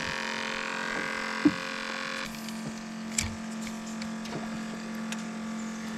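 Electric trolling motor humming steadily, its higher whine dropping away about two seconds in while the low hum carries on. A few light clicks.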